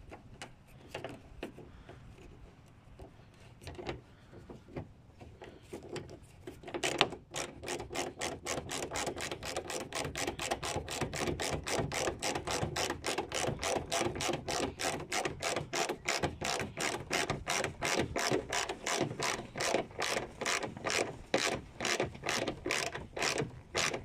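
Hand ratchet wrench clicking as it is swung back and forth to drive in a bumper fastener. A few scattered clicks give way, about seven seconds in, to a fast, steady run of ratchet clicks.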